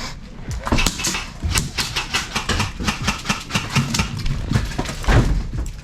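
Tokyo Marui MK18 gas blowback airsoft rifle firing a string of sharp shots in quick, irregular succession, with a heavier thump about five seconds in.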